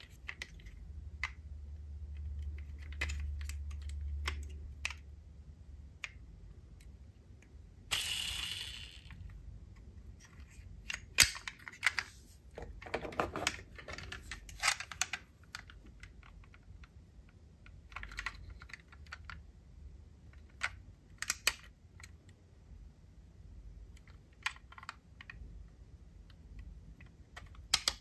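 Diecast metal model cars and their packaging being handled: irregular small clicks and taps, with a short rustle about eight seconds in and a dense run of clicks a few seconds later.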